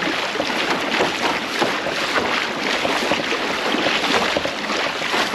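Water rushing and splashing along the hull of a Hobie Lynx pedal kayak cutting through a lake at about 6–7 km/h: a steady churning hiss of the bow wave and wake, with small splashes.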